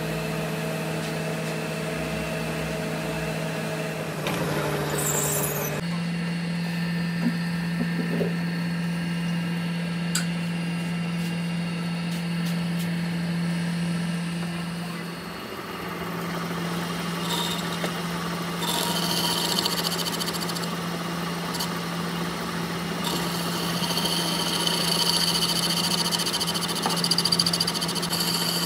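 A workshop machine motor running steadily at one pitch, which steps up slightly about six seconds in. From about 17 seconds a higher scraping noise joins, as of steel being machined or polished.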